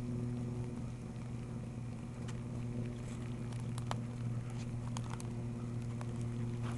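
A car engine idling with a steady low hum, with a few faint clicks over it.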